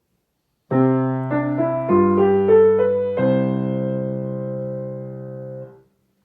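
Piano playing a short signal cue that announces the start of an activity: three chords with a quick rising melody on top, ending on a held final chord that is released and stops near the end.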